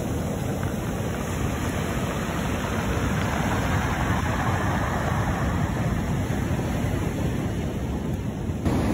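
Rough-sea surf breaking and washing up a pebble beach, a steady rush of water with wind buffeting the microphone.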